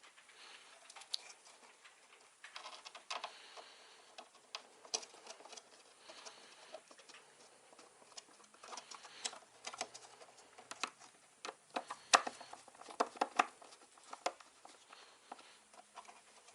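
Hands working on computer hardware in a plywood case: scattered light clicks, taps and handling noises at irregular intervals, with a denser run of sharper clicks about twelve to fourteen seconds in.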